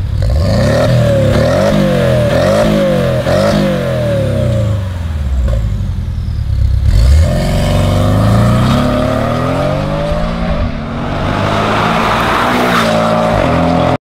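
2018 Porsche 718 Boxster's turbocharged flat-four through an Armytrix valvetronic exhaust: a run of quick rev blips rising and falling, then, about seven seconds in, a hard acceleration with the engine note climbing, easing off briefly, and climbing again.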